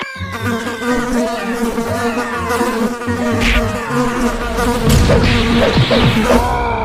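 Cartoon sound effect of a swarm of bees buzzing: a continuous, steady droning buzz, with a few short pitch flicks and low thuds about five seconds in.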